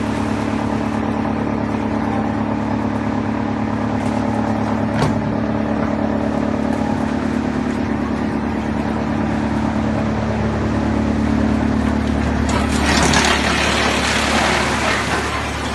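ROTEXMASTER YXP-690 mobile drum wood chipper running with a steady hum. About 13 seconds in, a louder rough, noisy sound joins it and lasts to the end.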